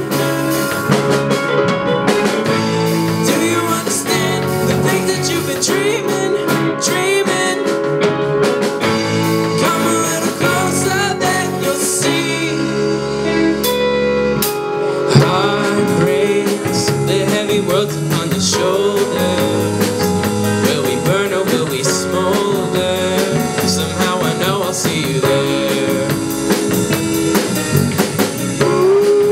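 Live rock band playing a cover song, with a male voice singing over keyboard and drums. About halfway through the band drops back to a held chord for a few seconds, then comes back in on a loud hit.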